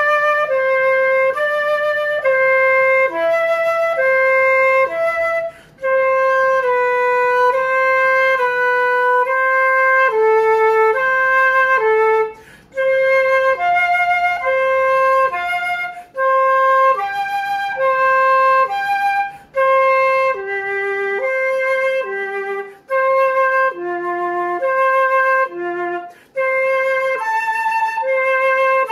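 Solo concert flute playing a slow finger-technique exercise: a held middle-register C alternating back and forth with neighbouring notes (C–D, C–E, then notes below), one clean note at a time. The phrases break off briefly for a breath every few seconds.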